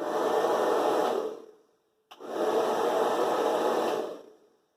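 Hair dryer blowing in two bursts: switched on for about a second and a half, off briefly, then on again for about two seconds.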